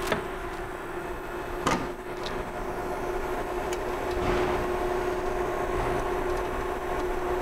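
Steady hum of a running TomTec Quadra 4 automated liquid handler, with a constant tone. Two knocks, one at the start and one about two seconds in, as its sheet-metal back panel is fitted back on.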